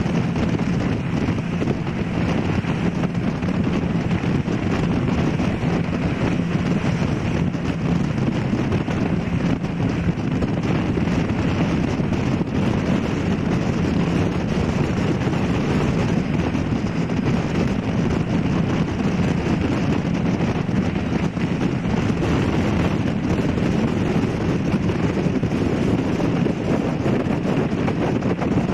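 Steady wind noise on the microphone over the constant drone of a tour boat under way, its engine humming and water rushing past the hull.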